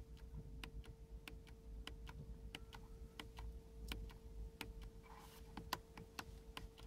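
A quick run of light, sharp clicks inside a car's cabin, about three a second and fairly even, over a faint steady hum.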